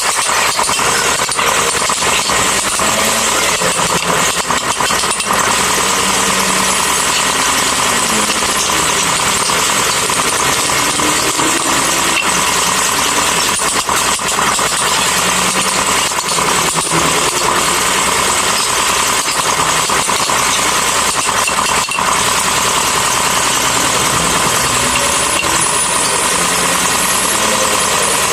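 Power tool running steadily on wood, with a constant whine over a dense rasping hiss.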